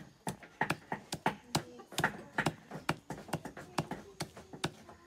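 Large knife chopping raw chicken on a wooden log chopping block, mincing it for momo filling. A steady run of sharp chops, about three a second.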